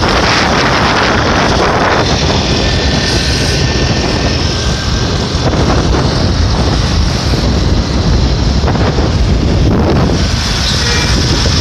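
Wind buffeting a phone's microphone on a moving motorcycle, over a steady rumble of engine and road noise.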